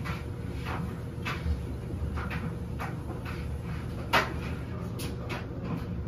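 LG front-load washing machine tumbling a load in its wash cycle: a steady low motor and drum hum, with irregular clunks about once or twice a second as clothes drop and knock inside the drum, the loudest about four seconds in.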